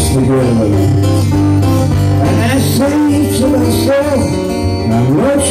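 Live acoustic folk song: two acoustic guitars strummed and picked together under a man's singing voice, as heard in an audience recording at a concert.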